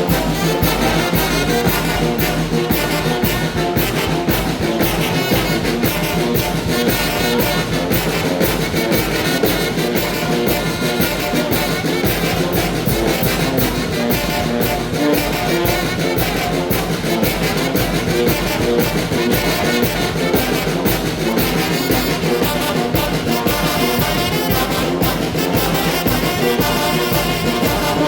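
Mexican brass banda playing a huapango: brass and percussion carry a steady, driving beat throughout.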